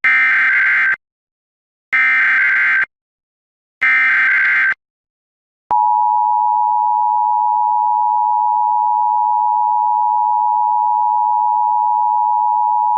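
Emergency Alert System SAME header: three loud bursts of digital data tones, each about a second long with a second's gap, which open an EAS alert. About six seconds in, the EAS two-tone attention signal (853 and 960 Hz together) starts and holds steady, announcing the Required Monthly Test.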